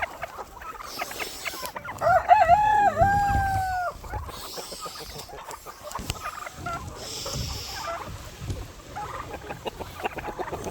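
A rooster crows once, a long held call starting about two seconds in, among chickens clucking.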